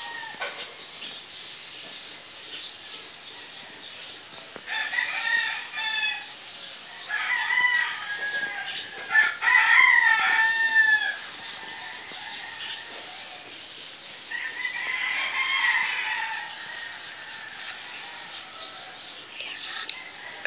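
Chickens clucking and a rooster crowing, in several separate calls, the loudest about nine to eleven seconds in.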